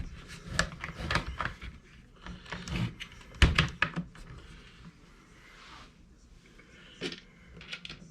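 Clicks and knocks of small plastic parts being handled and fitted on an RC truck's axle at a workbench, with a heavier knock about three and a half seconds in and a few more light clicks near the end.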